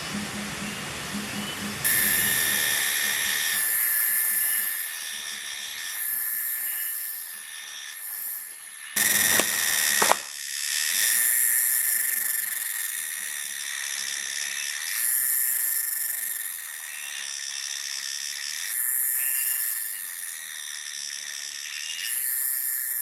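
Forest insects, cicada-like, shrilling in pulsing waves over a steady high whine, with a brief louder whoosh about nine seconds in.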